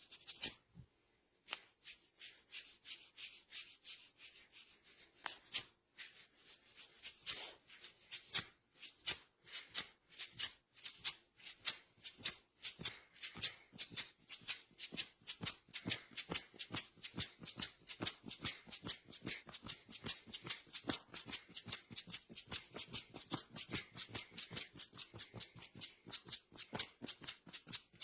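Hands rubbing briskly over hair and scalp during a head massage, a fast run of short, even strokes at several a second, pausing briefly about a second in and again around six seconds in.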